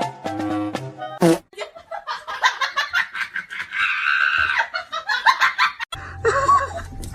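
A person laughing in quick, choppy bursts for several seconds, with a short stretch of music before the laughter and music coming back near the end.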